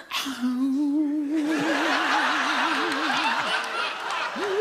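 A man's voice doing a comic imitation of a woman's orgasm moan as a ghost's wail: one long held 'ooo' whose vibrato grows wider and wider, then a second, higher wail starting near the end. Studio audience laughter rises under it from about a second and a half in.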